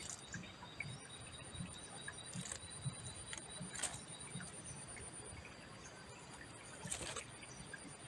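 Faint outdoor ambience: a steady high-pitched whine with a few soft ticks, the loudest near the middle and about seven seconds in.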